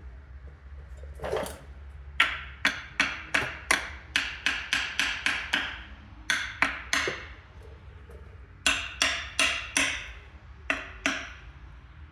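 Rapid runs of sharp hammer taps, about two to three a second with short pauses between runs, as the rear main seal of a 12-valve Cummins is tapped into its housing.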